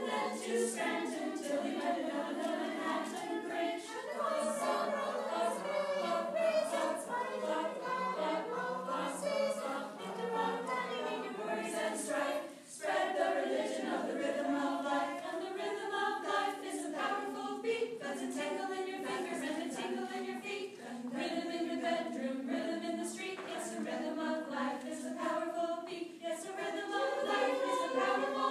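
Women's vocal jazz ensemble singing a cappella, with a short break in the singing a little under halfway through.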